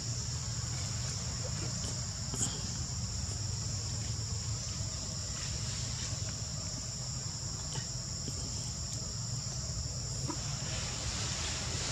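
Steady, high-pitched drone of an insect chorus over a low, steady rumble.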